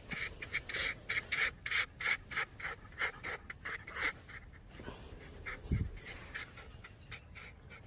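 Silver fox giving its breathy, panting 'laughing' cackle while being tickled on its belly: a fast run of short calls, about three a second, that thins out after about four seconds. A soft low thump comes near the end.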